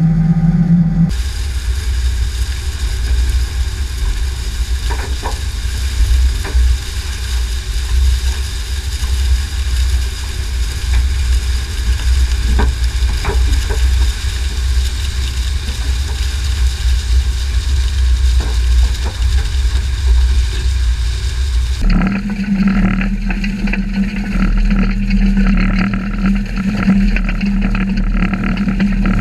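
A manure tanker and no-till injector rig working through corn stubble: a steady mechanical drone with noisy crackling from the coulter blades cutting the stalks. The sound changes abruptly about a second in, to a heavy low rumble, and again about three quarters of the way through, back to a steady hum with crackle.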